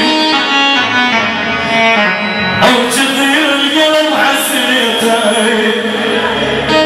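Male singer singing through a microphone and PA over amplified instrumental accompaniment.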